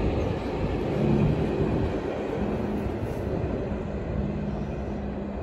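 Rail Adventure train passing: a steady rumble with a low hum that eases slowly as the train draws away.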